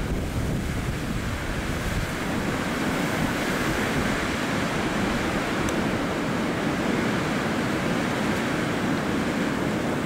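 Wind blowing steadily through snow-laden evergreen trees, a steady rushing hiss with a low rumble of wind buffeting the microphone.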